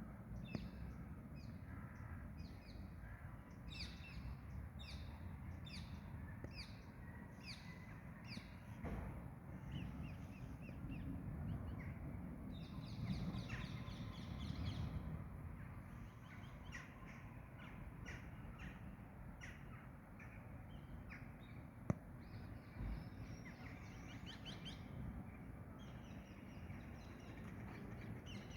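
Birds chirping in short, high notes, in quick series at about two notes a second, with a denser flurry about halfway through, over a steady low background rumble.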